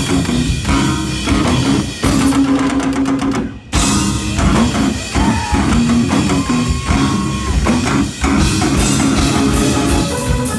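Instrumental rock played live on amplified electric shamisens over a drum kit. The band cuts out briefly about three and a half seconds in, then crashes back in.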